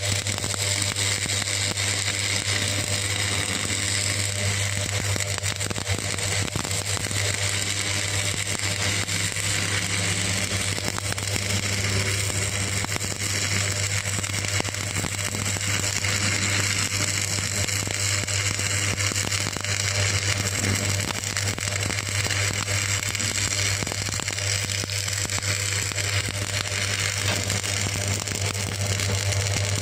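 Stick-welding arc crackling steadily, with a steady low buzz underneath.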